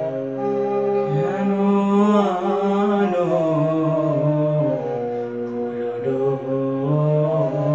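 A man singing a slow melody in long, gliding held notes over sustained chords played on an electronic keyboard.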